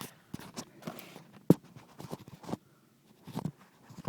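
Scattered light knocks and clicks, with one sharp knock about a second and a half in.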